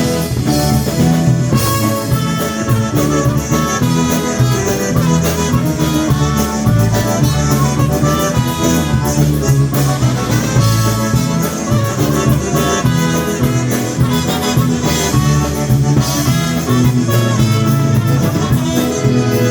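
Live polka band playing an instrumental break between verses, with accordion over a steady, bouncing bass beat.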